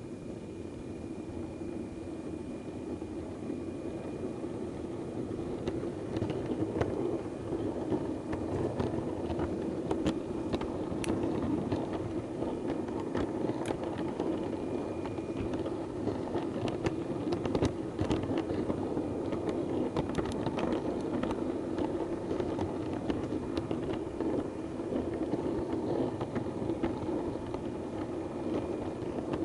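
Model diesel multiple unit running over pointwork: a steady hum with irregular sharp clicks of its wheels crossing points and rail joints, the clicks starting about six seconds in.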